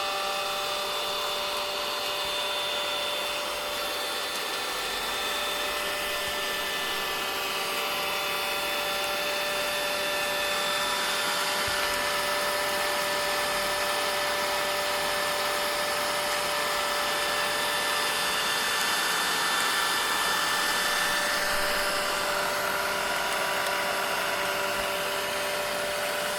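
Vacuum cleaner running steadily: a constant rush of air with a motor whine held at several fixed pitches.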